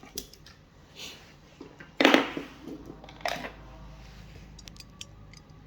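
Hard objects being handled on a work surface: a sharp knock about two seconds in, a smaller knock a second later, and light clicks between them.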